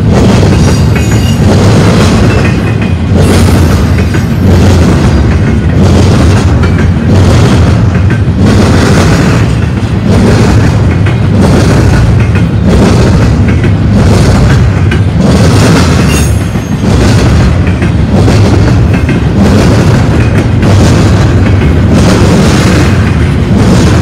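Double-stack container well cars of a freight train rolling past at close range: a loud, continuous rumble of steel wheels on rail, with regular clacks about once a second as the wheel trucks pass.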